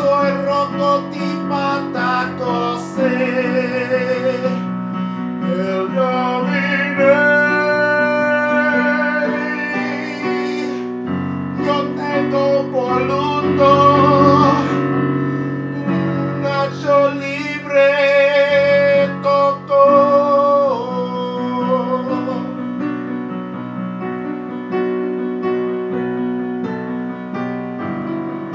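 Keyboard music: sustained chords with a wavering lead melody held over them, the notes changing every second or two.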